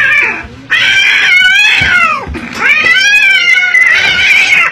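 A cat yowling in distress with its paw bitten by a turtle: two long, loud, wavering wails, the first falling away at its end and the second dipping and then holding high.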